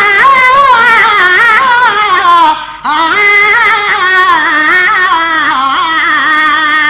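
Male voices singing a drawn-out, wavering melismatic line of a Sindhi maulood (devotional song), the pitch gliding and trembling. There is a short break about two and a half seconds in, then a long held phrase.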